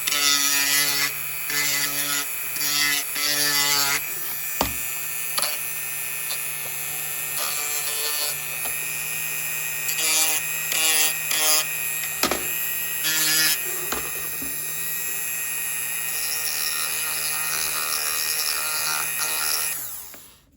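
Rotary tool with a cartridge sanding roll grinding a groove along a crack in a plastic part to prepare it for plastic welding. The motor runs steadily, with its whine and the grinding rising in short spurts as the roll bites, and it switches off near the end.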